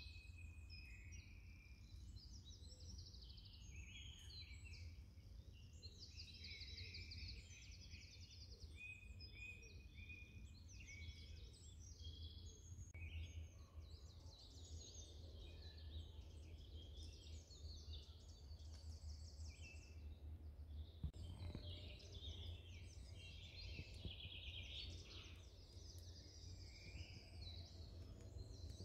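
Woodland birds singing and calling, many short chirps and trills overlapping throughout, over a faint steady low rumble.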